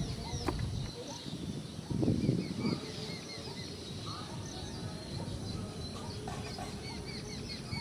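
Many small birds chirping continuously in quick, short notes. About two seconds in there is a brief, louder, low noise of under a second.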